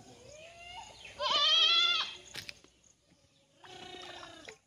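A goat bleating twice: a loud, quavering call about a second in and a shorter, quieter one near the end. A brief sharp click falls between the two calls.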